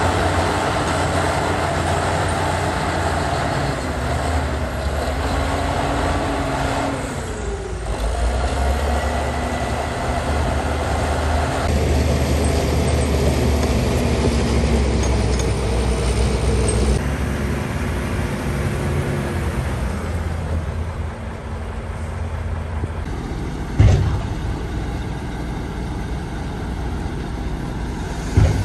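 Heavy diesel earthmoving machinery running, the bulldozer and dump trucks working the fill: a steady low engine rumble whose note drops and shifts several times. Two sudden sharp bangs stand out, one about two-thirds of the way through and one near the end.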